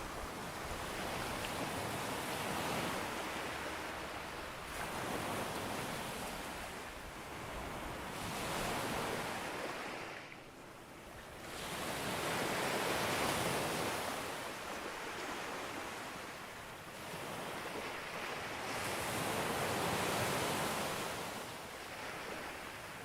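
Sea waves breaking on a beach, the surf swelling and falling away every few seconds, with a brief lull about ten seconds in.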